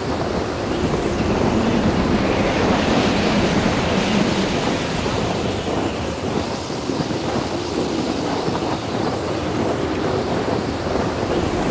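Strong wind buffeting the microphone: a loud, steady rushing and rumbling that drowns everything else.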